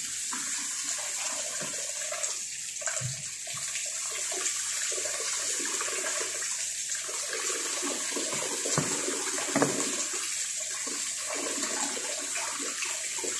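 Kitchen faucet running into a plastic colander as salmon pieces are rinsed, the water splashing steadily, with a few light knocks from the colander being handled.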